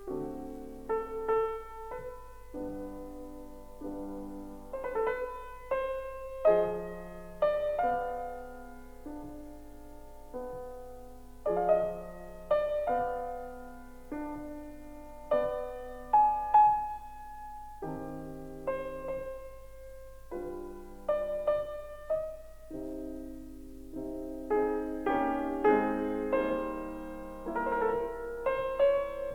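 Solo piano music: single notes and chords struck one after another, each ringing and dying away.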